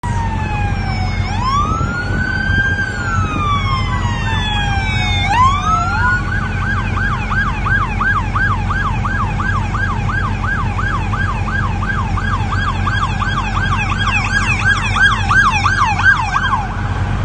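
Police car siren: a slow rising-and-falling wail that switches about six seconds in to a fast yelp of about three sweeps a second, which stops shortly before the end.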